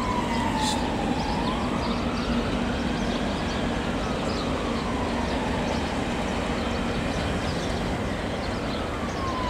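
Class 37 diesel locomotives with English Electric engines running as they pass slowly, a steady diesel hum. A siren wails slowly down, up and down again over it.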